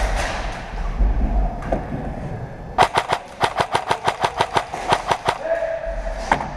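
Airsoft gun firing a quick string of about fifteen shots, roughly six a second, lasting about two and a half seconds, starting a little before halfway through.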